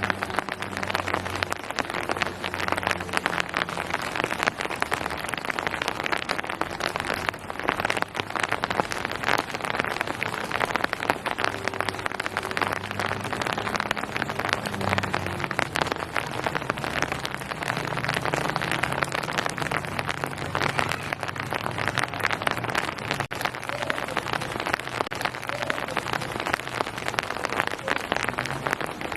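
Steady rain with a dense patter of drops hitting a surface, even throughout, with a faint low hum beneath it.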